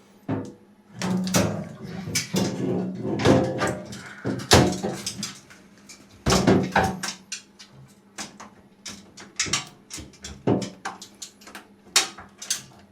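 Repeated clicks, knocks and rattles of hands working on the parts of a washing machine, with sharp separate strokes scattered throughout.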